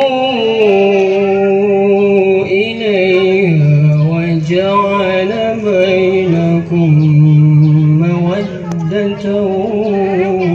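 A man chanting a slow, ornamented melody solo, holding long notes with wavering pitch and pausing briefly between phrases.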